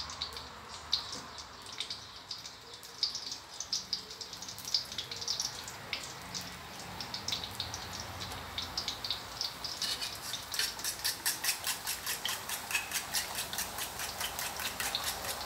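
Chopped garlic frying in oil in a steel wok, with scattered crackles and pops that turn into a dense, rapid crackle about ten seconds in.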